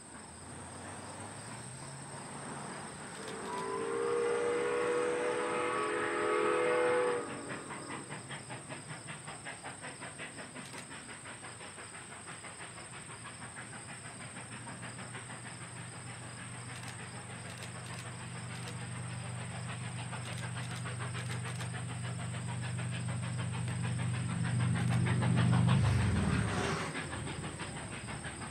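Steam locomotive 7470 sounds one long whistle blast of about four seconds that is cut off sharply, then its fast, even exhaust chuffs and the train's running noise build as it approaches. Near the end a low drone peaks and falls in pitch as the train passes.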